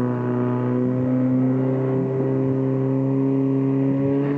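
Portable fire pump's engine running flat out at high revs: a steady, loud engine tone creeping slightly upward in pitch as it drives water through the hoses to the spraying nozzles.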